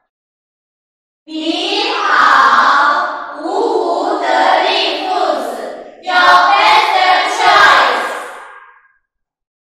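A group of women's voices calling out together in unison, starting about a second in, in three long chanted phrases, as a team slogan.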